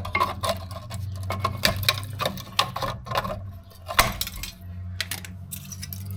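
Cutters snipping away the rusted, crumbling edge of a car's rear brake dust shield: a quick, uneven run of sharp metal snips and crackles, with a louder clack about four seconds in.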